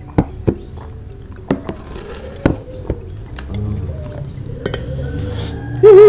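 Tableware clinking during a meal: enamel mugs set down on the table and spoons on plates, a handful of sharp clinks over soft background music. Near the end comes a brief, loud, wavering pitched sound.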